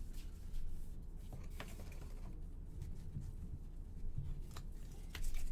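Trading cards being handled and dealt onto a stack on a mat: faint slides of card stock and a few light, irregular clicks as cards are set down.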